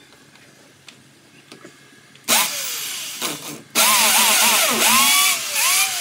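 Corded electric drill boring into a cement-rendered masonry wall. It starts about two seconds in with a short run that winds down, then runs again longer, its motor whine dipping and rising as the bit bites, and eases off near the end.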